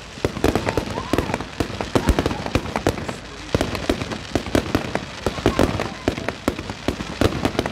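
Fireworks display: a rapid, irregular barrage of bangs and crackles from bursting aerial shells, with a brief lull about three seconds in.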